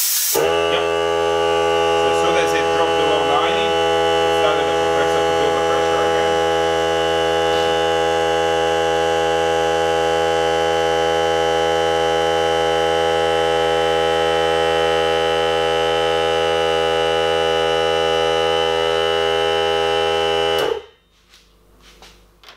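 Ryobi 18V ONE+ cordless air compressor's motor and pump kicking on and running with a steady hum, refilling the tank after its pressure dropped below about 90 PSI, then cutting out suddenly about 21 seconds in as the tank reaches full pressure of about 120 PSI.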